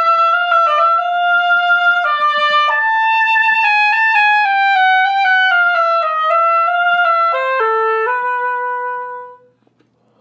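Solo oboe playing a slow, smoothly joined melody, one note at a time. It ends on a long held low note that fades out about nine seconds in.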